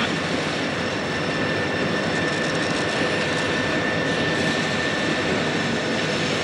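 Freight diesel locomotives, a Rio Grande unit leading a Conrail unit, running as they pull slowly past: a steady engine drone with a thin steady whine above it.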